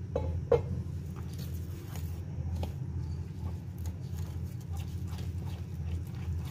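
Metal spoon stirring and scraping wet coarse gram flour into a thick batter in a steel bowl: irregular soft scrapes and small clicks against the bowl, with one louder clink about half a second in.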